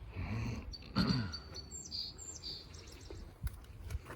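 Small birds chirping, a few short high calls in the first half or so. Two short low sounds come near the start, about a second apart.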